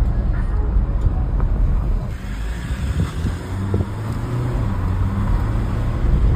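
Diesel pickup truck running, a steady engine hum over low rumble and wind noise. The rumble eases about two seconds in, leaving a steadier engine note.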